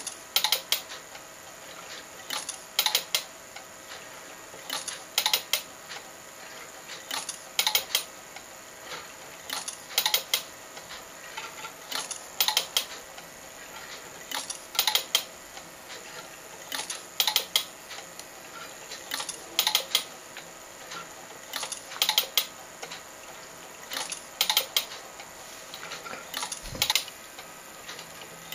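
Homemade telecine stepping Panascope 8 film through frame by frame: a short cluster of sharp mechanical clicks about every two and a half seconds, over a faint steady hum.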